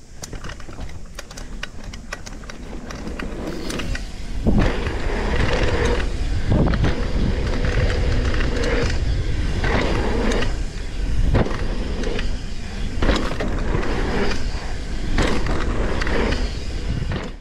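Mountain bike being ridden fast down a dirt trail: wind rushing over the microphone, tyres rumbling on the dirt, and repeated knocks and rattles from the bike over bumps. It gets louder over the first few seconds as speed builds, then cuts off abruptly.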